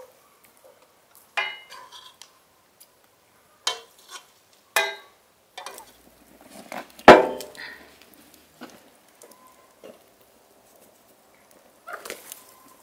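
A metal spoon scraping and clinking against a steel cooking pan of chicken pieces in a few separate strokes, with one loud metal clank about seven seconds in as the steel pan is set down on an iron ring stand over a wood fire.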